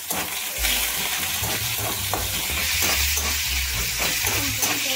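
Freshly added sliced onions sizzling in hot oil in a metal kadai, stirred with a spatula that scrapes against the pan in repeated strokes.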